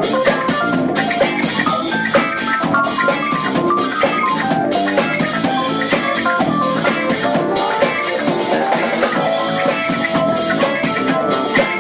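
Fusion jazz quartet playing live: a drum kit keeps a steady beat with regular cymbal strokes under busy melodic lines on electric guitar and keyboards.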